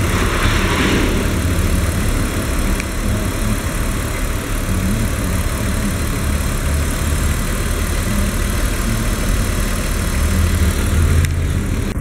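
BMW E46 328Ci's M52 2.8-litre straight-six idling steadily with the bonnet open, an engine test run.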